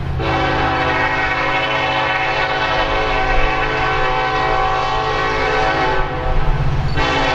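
Locomotive horn of NS 1070, an EMD SD70ACe diesel, blowing for a grade crossing: one long blast, then another starting about a second after it ends near the six-second mark, over the low rumble of the diesel engine.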